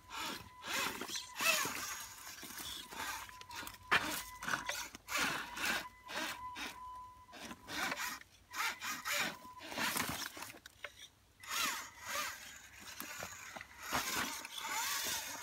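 Electric motor and gear drive of an RC scale crawler whirring in short stop-start bursts, the whine rising and falling in pitch as the throttle is worked.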